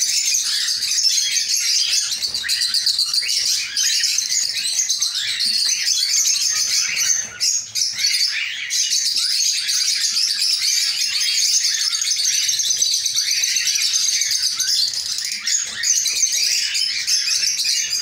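A colony of cockatiels chattering and calling without a break, a dense, loud mass of high-pitched chirps and squawks overlapping one another.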